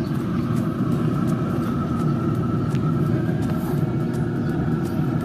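Pit Boss 700FB wood pellet grill running hot during its burn-off: a steady low rumble of the combustion fan and firepot, with a faint steady whine over it.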